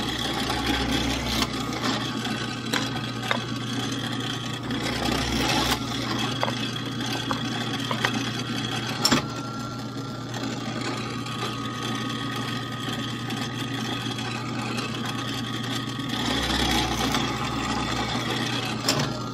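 Drill press motor running steadily while its bit drills holes into small wooden blocks. The drilling swells three times, near the start, about five seconds in and about sixteen seconds in, with a sharp click near nine seconds.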